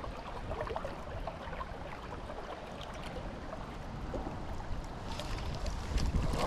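River water running and gurgling, with many small splashes, growing a little louder near the end.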